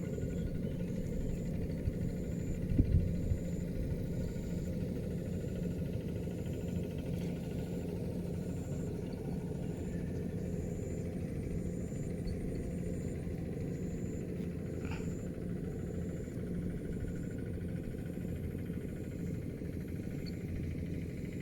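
An engine running steadily: a continuous low rumble with a constant hum, with a brief louder bump about three seconds in.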